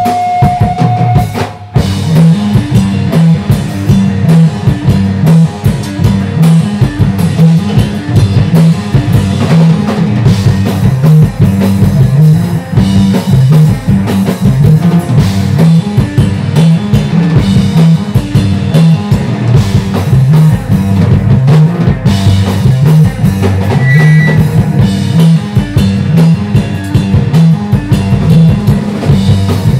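Live math rock band playing loud: a drum kit and an electric guitar driving a busy rhythm, with the music stopping for an instant about two seconds in before it carries on.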